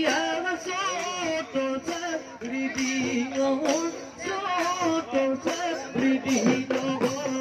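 Live Assamese Bihu folk music: dhol drums beating, cymbals jingling and men singing over a sustained held tone.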